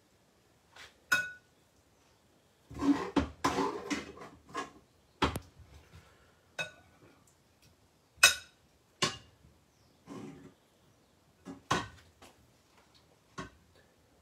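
A metal spoon clinking and scraping against a ceramic bowl and a metal pan while vegetables are spooned into a noodle bowl: a dozen or so separate knocks, with a longer rattling scrape about three seconds in.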